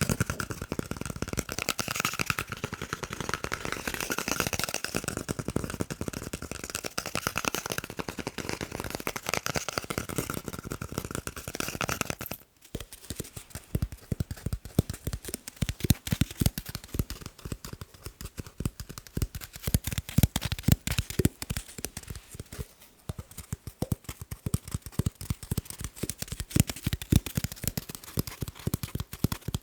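Rapid ASMR tapping on objects: a dense, bright patter for the first dozen seconds, then, after a short break about halfway, deeper and more separate taps with a dull thud to them.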